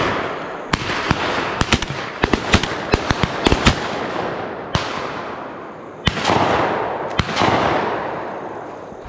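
A volley of shotgun fire from several hunters shooting at a dove: well over a dozen shots, quick cracks packed together in the first few seconds, then a few louder, closer shots later on, each trailing off in a long rolling echo.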